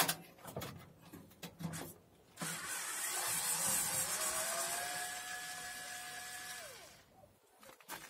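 Cordless screwdriver backing screws out of a washing machine's sheet-metal casing. A few clicks and knocks come first, then the motor spins up to a steady whine for about four seconds and winds down.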